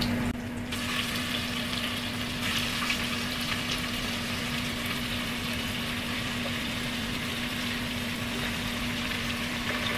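Chicken pieces sizzling in hot oil with ginger, onion and garlic as they are dropped into the pot and stirred with a wooden spatula: a steady frying hiss that grows stronger a couple of seconds in. A steady low hum runs underneath.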